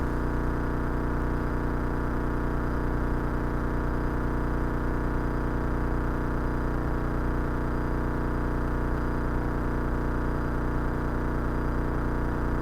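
Cessna 172 Skyhawk's piston engine and propeller droning steadily in flight, with an even, unchanging hum.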